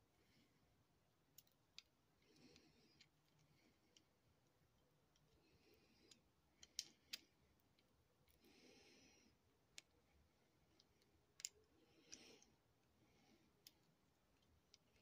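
Near silence with faint, irregular clicks and a few soft breaths about every three seconds.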